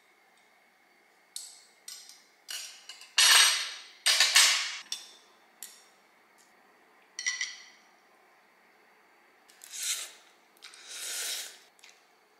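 Eating ramyun from a glass bowl: chopsticks and a metal spoon clink and scrape against the glass in scattered taps, with a few longer, louder sounds around three to four seconds in and again near the end.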